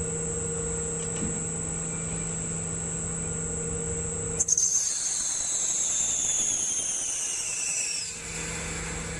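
Small CNC lathe with a gang tool post running, with a steady hum and a high whine. About halfway through, the steady tones give way to a hiss and a high whine that falls in pitch for a few seconds. The steady hum returns near the end.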